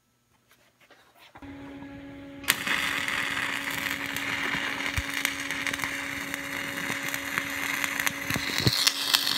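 Stick (SMAW) welding arc: a steady hum comes up about a second and a half in, then the arc strikes with a sharp crack about a second later and burns on with a steady crackling hiss as a stringer fill pass is run on a flat test plate.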